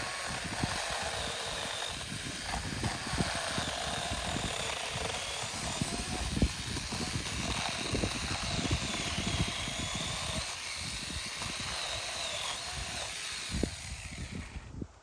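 Saker 6-inch battery-powered mini chainsaw running and cutting through a thick tree limb, its motor whine rising and dipping in pitch as it works, then stopping near the end. Low thumps and knocks come and go under it.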